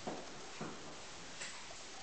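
Three short soft taps and scuffs as a papillon puppy paws and digs at the fleece lining of a fabric dog bed.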